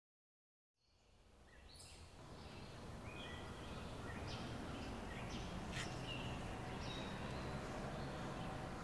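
Silence, then a steady outdoor ambience fades in over a couple of seconds, with scattered short bird chirps.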